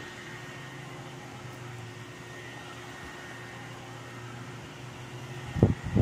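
Steady mechanical hum with a faint high whine, like a running room appliance, and two short low thumps near the end.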